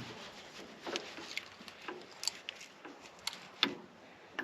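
A handful of separate light clicks and taps: a ratchet's socket and extension knocking against engine parts while being worked onto an oil pressure switch in a cramped spot.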